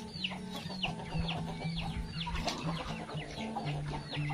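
A flock of young Rhode Island Red, hybrid and native chickens clucking and chirping while they feed, with a steady run of short high chirps that fall in pitch, about three a second.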